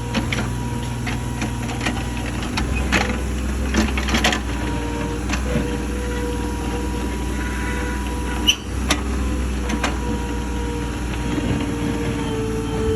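Komatsu 30-6 mini excavator working: the diesel engine runs steadily with a faint whine that shifts a little in pitch, over scattered clanks and knocks, the sharpest about eight and a half seconds in.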